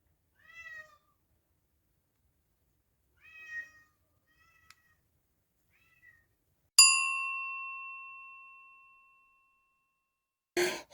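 A cat meows about four times, in short calls a second or two apart. It is followed by a single bell-like ding that rings out and fades over about two seconds, and a brief loud noise comes near the end.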